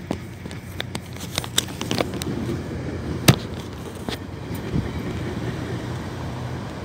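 Steady low hum of a car engine running, with scattered sharp clicks and knocks on top, the loudest about three seconds in.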